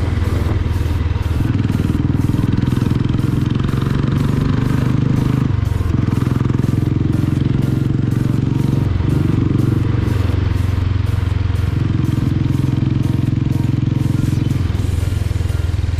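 Royal Enfield motorcycle engine and exhaust running under way, heard from the rider's position. The engine note drops and picks up again several times with changes of throttle and gear.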